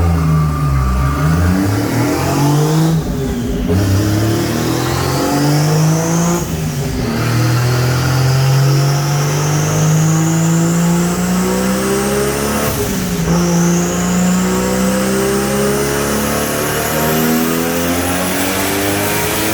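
Turbocharged Toyota 1JZ inline-six at full throttle in a dyno pull, its pitch climbing steadily. There are brief breaks about 3, 7 and 13 seconds in, where the revs fall back as at gear changes, before it climbs again.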